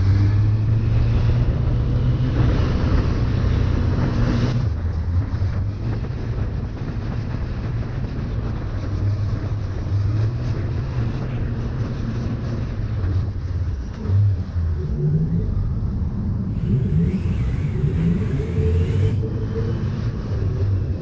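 Suzuki GSF1200 Bandit's inline-four engine running at low road speed, its pitch shifting as the throttle opens and closes, with wind rushing past. A brighter hiss of noise comes in for about two seconds near the end.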